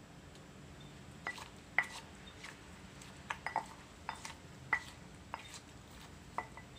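Wooden pestle knocking in a clay mortar while pounding som tam ingredients: about a dozen sharp, irregular knocks, starting about a second in.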